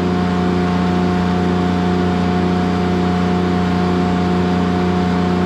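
Kubota GL14000 diesel generator running steadily under a load of about 4,000 watts, a constant low hum with a steady higher tone over it.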